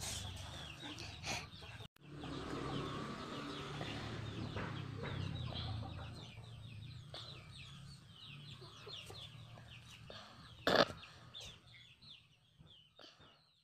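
Chickens calling: many short, high chirps that fall in pitch, several a second, over a low background rumble, with one louder burst of noise about three-quarters of the way through.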